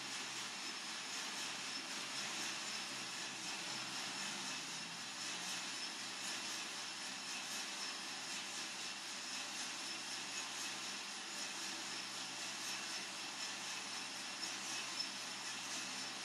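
Coffee-Tech FZ-94 lab drum roaster running mid-roast: a steady mechanical whir and hiss, with one brief click near the end.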